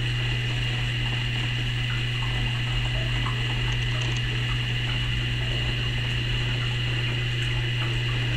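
Reef aquarium circulation pumps and powerhead running: a steady low hum and a high whine over the sound of moving water.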